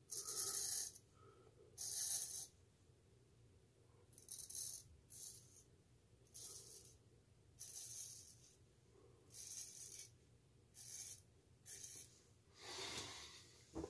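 Wade & Butcher 8/8 hollow-ground straight razor scraping through one day's stubble under lather on the first pass with the grain: about ten short rasping strokes, each under a second, roughly one a second.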